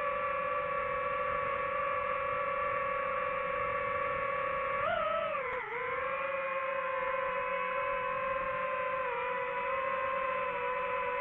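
Boat engine running with a steady droning hum. About five seconds in its pitch briefly rises, then dips and settles back, as with a change of throttle, and it drops a little again near the end.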